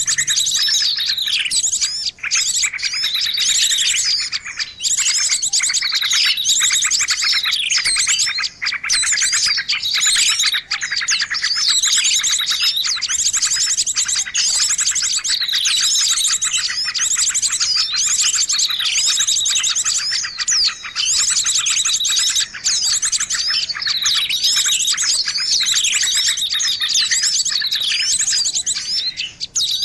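A dense, noisy chorus of many small birds chirping and trilling at once, with fast rapid-fire trills and repeated sweeping notes. It is a bird-lure (pikat) recording meant to draw small birds in close.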